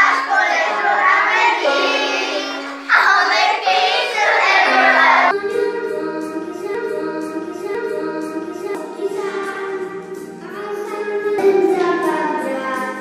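Children singing a song over backing music. About five seconds in it changes to a section of longer held notes, more like a choir, with a deeper accompaniment underneath.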